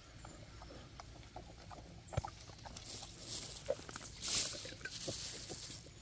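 A sow and piglets eating treats and rooting on dry ground: scattered chewing and crunching clicks with snuffling, one sharper snap about two seconds in and a short squeak or grunt just before a louder rustling hiss about four seconds in.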